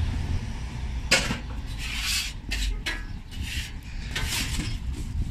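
A series of short rustling noises, about six in four seconds, over a low steady rumble.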